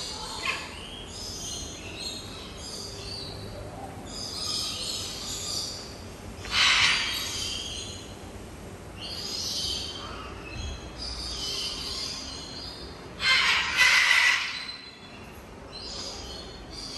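Several birds chirping and calling at once, with two louder calls, one about seven seconds in and one around thirteen to fourteen seconds.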